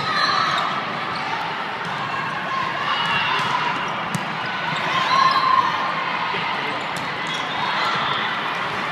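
Volleyball being played in a large, echoing hall: a steady din of many voices, with short squeaks of shoes on the court and sharp slaps of the ball being hit now and then, the clearest about four seconds in.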